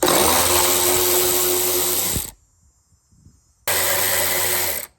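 Hand-held power tool run in two bursts, about two seconds and then about a second, with a steady whine under the noise, most likely working fasteners loose on the tailgate.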